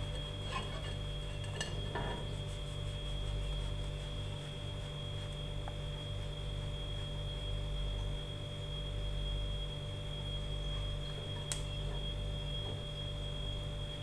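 Steady electrical hum with a thin high-pitched whine over it, and a couple of faint ticks.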